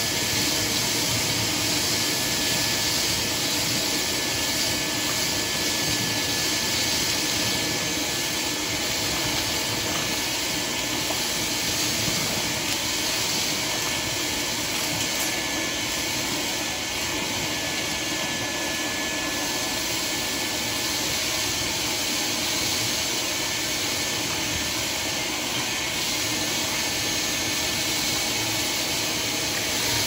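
Soot vacuum running steadily, its hose sucking soot and debris out of the base of a chimney, with a thin high whine over the rushing noise.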